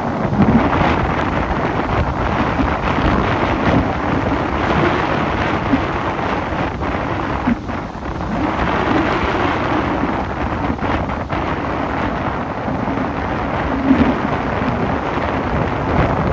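Strong wind buffeting the microphone over high surf breaking on the beach: a loud, steady rush with a heavy low rumble that swells and eases.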